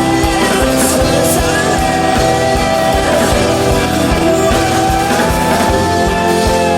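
Pop-punk rock song: a full band playing, with regular drum hits under guitars and long held melody notes over them.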